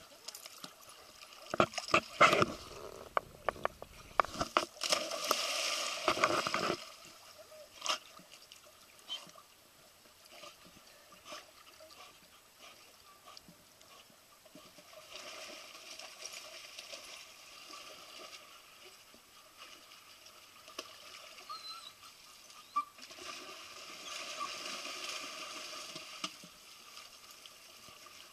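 Pool water splashing as dogs jump in and swim: a run of loud splashes in the first few seconds, then quieter sloshing and lapping water with a couple of softer surges of splashing later on.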